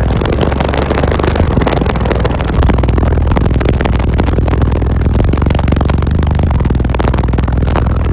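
A car audio system with six Sundown ZV5 18-inch subwoofers playing loud, deep bass notes that shift in pitch now and then. The car's panels and trim rattle and clatter along with the bass.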